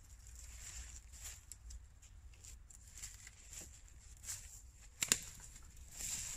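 Dead branches rustling and dry twigs snapping as kindling is broken off a fallen tree, with one sharp crack about five seconds in.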